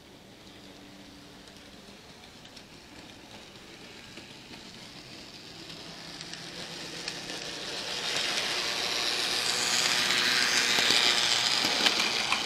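An N gauge model train's running noise, a hissing rumble of small wheels on track with a faint motor whir, growing steadily louder over the second half and loudest as a model train on the neighbouring track passes close by near the end.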